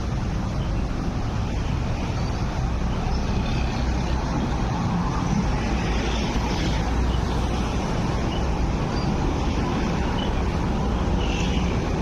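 Steady running rumble of a 6th-generation Peak Tram funicular car travelling downhill on its rails, heard from inside the car.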